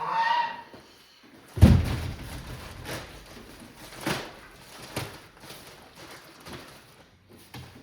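A heavy thump about one and a half seconds in, then several lighter knocks roughly a second apart over low rustling, as bedding shavings are dumped and spread in a wooden brooder.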